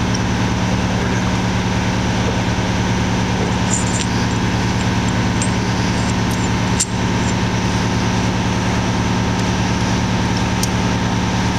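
Steady drone of running machinery with a constant low hum, and a few light clicks.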